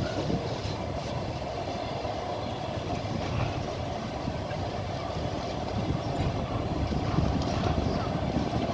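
Train running along the line: a steady rumble of wheels on rails.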